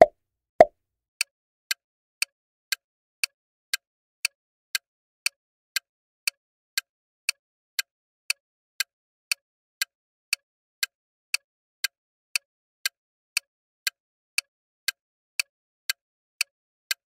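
Clock-ticking countdown-timer sound effect: sharp, even ticks about two a second. It is preceded at the very start by two short, lower-pitched pop sound effects.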